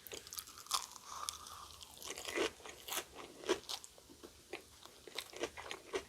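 Close-up chewing of a crispy battered Korean corn dog: irregular crunches and wet mouth clicks, many small crackles a second.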